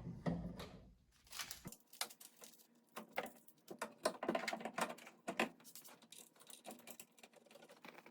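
Irregular light clicks and clacks, a few a second, from tools and parts being handled during work on a steering column.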